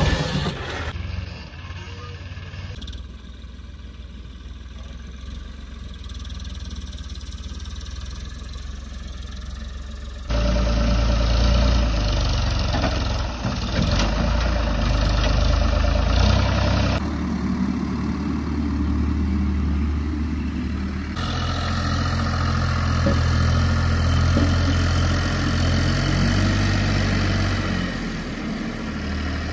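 Diesel tractor engines running, the sound changing abruptly at several cuts. Early on a John Deere 5036 D loader is working; from about a third of the way in it is louder, as a Ford 3600 turbo tractor's engine pulls a loaded soil trolley.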